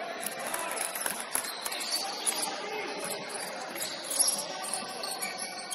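Basketball game sounds: sneakers squeaking sharply and often on a hardwood gym floor as players run the court, with players calling out and the odd ball bounce.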